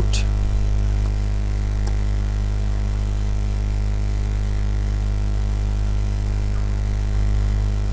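Steady low electrical hum in the recording, a constant drone with a few stacked low tones, with a couple of faint clicks in the first two seconds.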